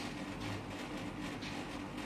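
Murai songbird splashing in a bath dish of water: a run of short, faint splashes over a steady low hum.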